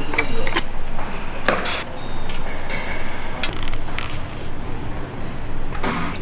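A few sharp clicks and clinks of small metal valve-train parts being handled and fitted into an aluminium cylinder head, over a steady low workshop hum.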